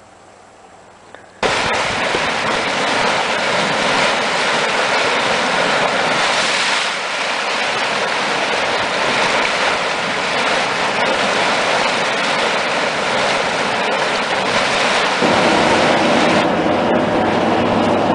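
Boiling, steaming hot spring churning: a loud, steady rushing and hissing of water that starts abruptly about a second and a half in. Near the end it shifts to a deeper, fuller rush.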